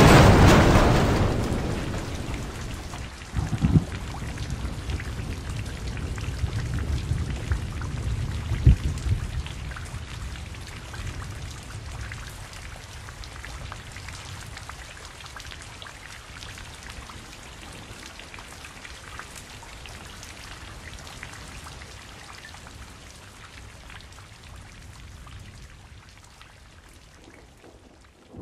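Rain falling with thunder: a loud clap dying away at the start, two more rumbles about four and nine seconds in, then the rain slowly fading out.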